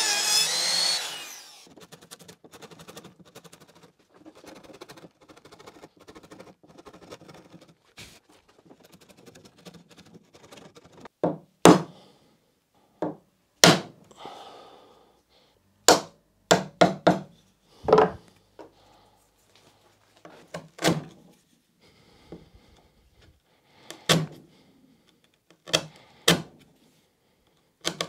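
A trim router running in the worktop stops and runs down in the first second or two. Faint scraping follows. From about halfway on comes a series of a dozen or so sharp, irregular knocks: a wood chisel being struck to square off the corner of the routed notch in the chipboard kitchen worktop.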